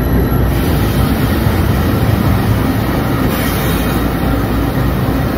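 Union Pacific diesel locomotive passing close by: a loud, steady mix of engine rumble and rolling wheel noise.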